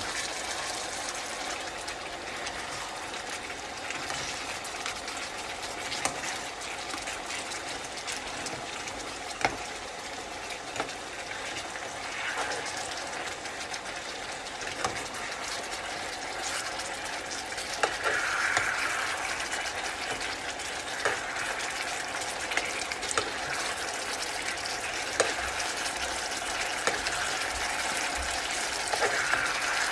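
Beef shank and vegetables in tomato sauce sizzling and simmering in a nonstick frying pan, with a spoon stirring and clicking against the pan every few seconds.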